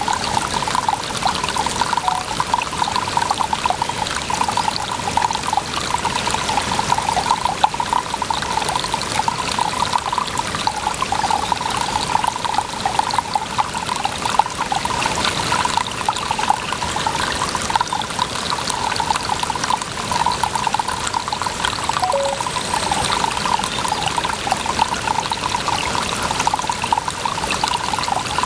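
Water running and trickling steadily, a continuous bubbling splash that keeps an even level throughout.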